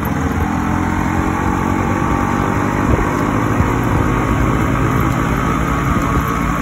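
Yamaha RX100's two-stroke single-cylinder engine running steadily at cruising speed, heard from the rider's seat with road and wind noise.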